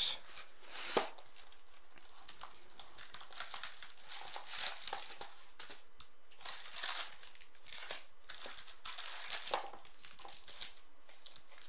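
Foil-wrapped trading-card packs crinkling and rustling as they are handled and lifted out of their cardboard box, in irregular bursts, with a light knock about a second in.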